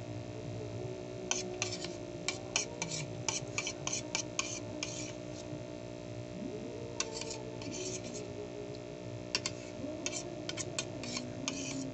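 Close-up eating sounds: a metal spoon clinking and scraping on a ceramic plate, and wet chewing clicks, in quick crackly clusters while rice porridge is eaten with chili. The clicks come in three bunches with short pauses between them.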